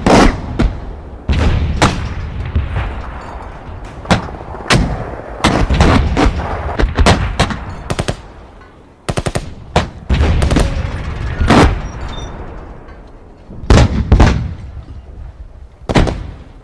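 Battle sound effect of gunfire: sharp shots at irregular intervals, some in quick clusters, over a steady low rumble. The shots thin out in the last few seconds, with a few louder ones near the end.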